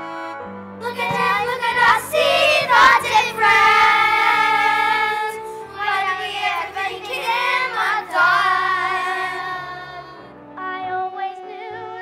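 Children's musical-theatre cast singing over instrumental accompaniment, with long held notes and a wavering vibrato.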